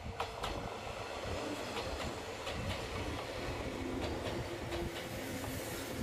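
Limited express electric train passing close by, its wheels clacking over the rail joints with a steady running rumble and a faint hum.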